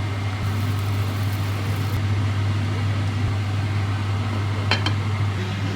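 Steady low electrical hum of a running motor or appliance, with one short sharp click near the end.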